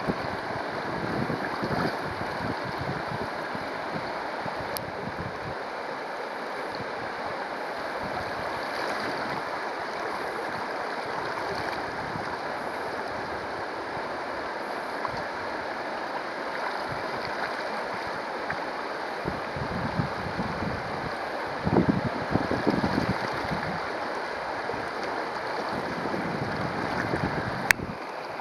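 Shallow river riffle: water babbling steadily over stones. Gusts of wind buffet the microphone now and then, strongest about three-quarters of the way through, and a sharp click comes near the end.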